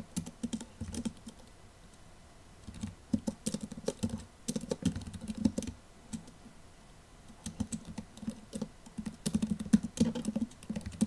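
Typing on a computer keyboard: quick runs of key clicks in three bursts, with short pauses between them, as terminal commands are entered.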